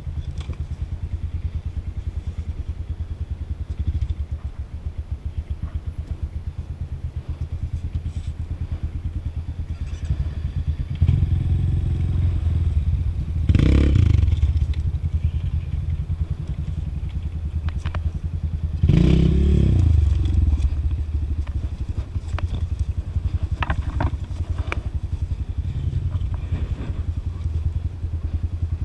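Trail motorcycle engine running at low revs with an even, rapid firing pulse, picking up louder twice, about halfway through and again about two-thirds through, with scattered clatter and knocks from the bike over rough ground.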